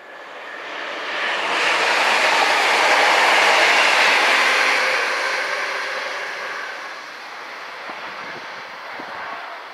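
Great Northern Class 365 electric multiple unit passing on the line, its wheel and rail noise swelling to a peak about three seconds in and fading as it draws away.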